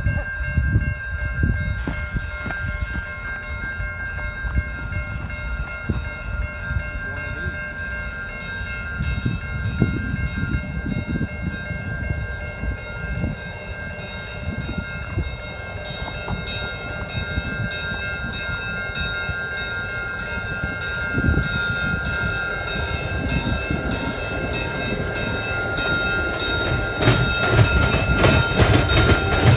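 Pair of diesel locomotives running light, their engines rumbling as they approach, with a steady high ringing tone over the top. The rumble grows louder near the end as the units roll past and their wheels clatter over the rails.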